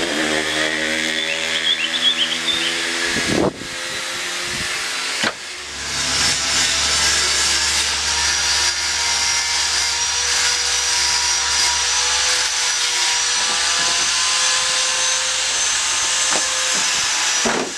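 Dump truck's diesel engine running steadily, with a high, steady hiss over it from about six seconds in, which the men take for a leak somewhere on the truck.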